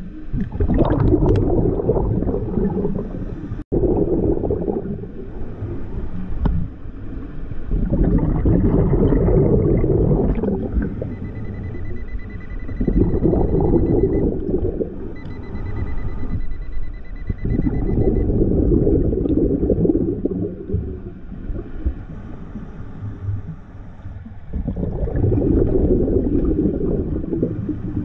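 Scuba diver breathing through a regulator underwater, each exhalation a rush of bubbles in bursts every five or six seconds. Twice, about midway, a thin steady beep holds for a few seconds: the Nokta Pulse Dive metal detector signalling a target.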